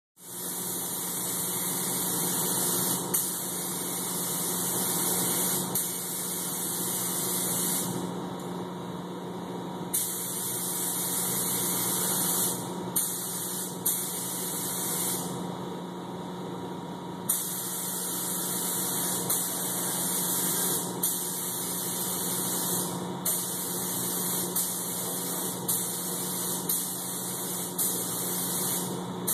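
Air-fed paint spray gun hissing as paint is sprayed in long passes onto a car body. The hiss stops for about two seconds twice as the trigger is let off, with brief breaks elsewhere, over a steady hum underneath.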